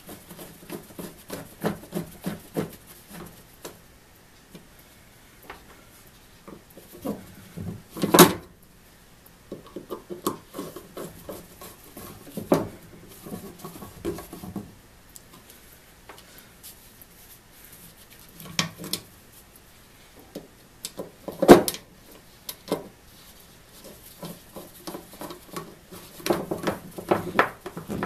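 Small screwdriver working the steel saw nuts on a wooden hand-saw handle: light clicks and scrapes of the blade in the screw slots as the nuts are tightened, with scattered knocks of metal on wood. Two louder knocks stand out, about eight seconds in and about twenty-one seconds in.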